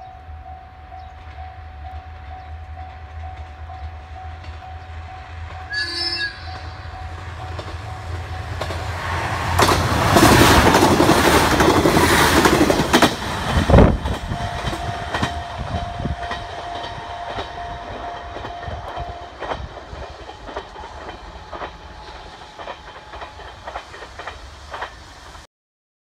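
Level crossing warning bell ringing as a JR KiHa 110 series diesel railcar approaches, with a short horn toot about six seconds in. The railcar passes loudly around ten to thirteen seconds in, then its wheels clatter rhythmically over the rail joints as it moves away. The crossing bell stops a few seconds after the train has passed, and the sound cuts off abruptly near the end.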